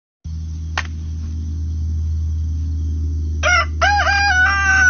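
A rooster crowing about three and a half seconds in: a short opening note, then a long, held final note. A steady low hum runs underneath.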